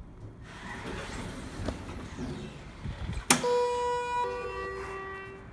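Schindler elevator hall-lantern chime: a sharp click, then a two-note chime with the second note lower, sounding with the lit down arrow to signal the car will travel down. Before it, a few seconds of soft shuffling noise.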